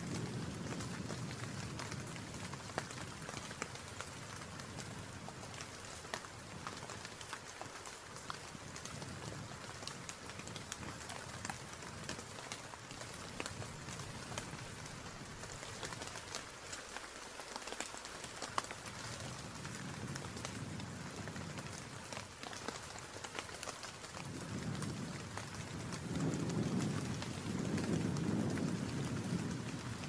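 Steady rain falling, an even hiss dotted with many small drop hits. A deeper low surge of wind or rumble swells up at the start and more strongly near the end.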